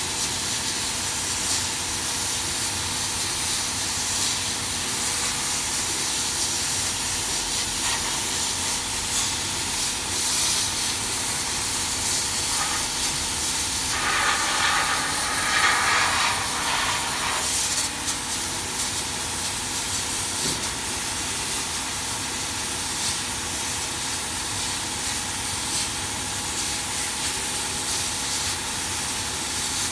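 CO2 laser fabric-cutting machine running as it cuts: a steady hiss of moving air with a faint steady hum, a little louder for a few seconds about halfway.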